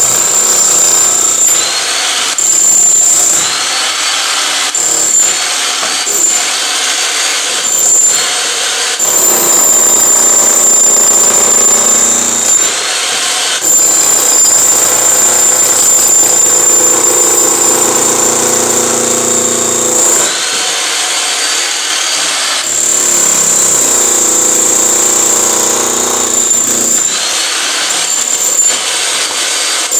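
Electric demolition hammer chiselling into a concrete floor slab. It hammers in spells of a few seconds with short breaks, and a high steady whine from its motor cuts out and comes back with each break.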